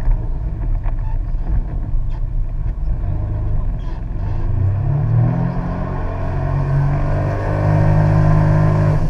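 An engine running and speeding up: its pitch climbs between about three and five seconds in, then holds high and steady, loudest near the end.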